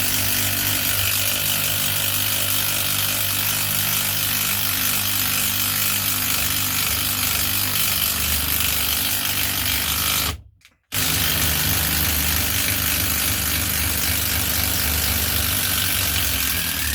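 Cordless brushless impact driver hammering an 8 mm by 120 mm coach screw into pre-drilled oak, stopping for a moment about ten seconds in and then hammering on again. The screw goes in hard: the driver is struggling under the load.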